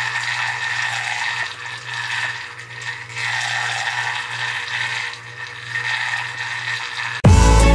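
Water swirling and churning in a glass bowl, spun into a whirlpool by a magnet turned by a small electric motor underneath, over a steady low hum. Loud music cuts in suddenly near the end.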